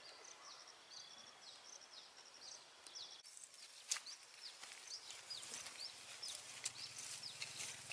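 Faint outdoor ambience with small birds chirping over and over, short high downward notes. From about three seconds in, a few sharp clicks join them.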